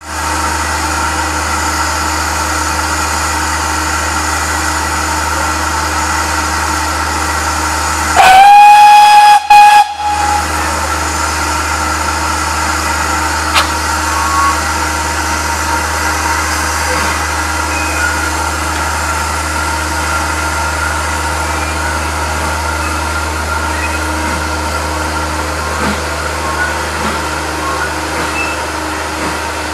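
Steam tank locomotive standing with steam hissing steadily from it. About eight seconds in its whistle sounds very loudly, a long blast and then a short one, and the hiss carries on.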